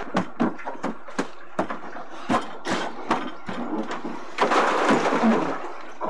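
Irregular knocks and bumps of a child clambering over the wooden boards of a backyard playhouse, with a rush of noise lasting about a second near the end.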